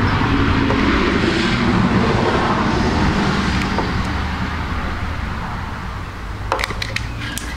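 Handheld gas torch running with a steady hissing rush as its flame heats shrink tubing over wire splices. A few sharp clicks come near the end.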